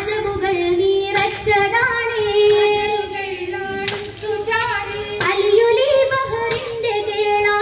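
Oppana song: female voices singing a Mappila melody together without instruments, punctuated a few times by sharp handclaps.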